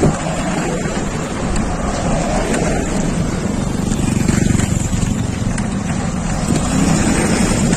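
Wind buffeting the microphone of a camera on a moving bicycle, mixed with oncoming cars passing on the road. A motor vehicle's engine grows louder near the end.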